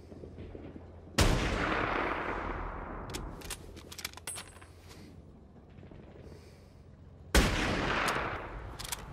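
Two loud gunshot blasts about six seconds apart, each ringing out and fading over about two seconds, with a scatter of sharp, fainter cracks between them, like battle gunfire from a war-film soundtrack.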